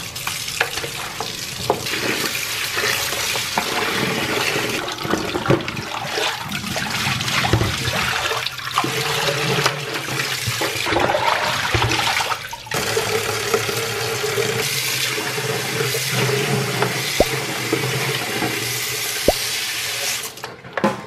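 Water running and splashing in a plastic washbasin as a plush toy is hand-washed: tap water pouring onto the soaking toy, dirty water tipped out onto a tiled floor drain, and near the end soapy water sloshed about by hand.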